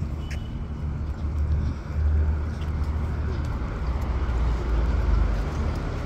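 A steady low engine hum with traffic-like noise that swells and fades about halfway through, and a short high chirp near the start.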